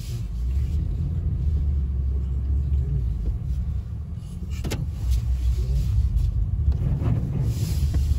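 Low, steady rumble inside a car cabin as the car drives slowly along a snow-covered street, with one sharp click about four and a half seconds in.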